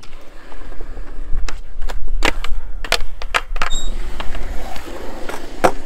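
Skateboard rolling on smooth concrete with a low wheel rumble, broken by several sharp clacks of the board, the loudest near the end.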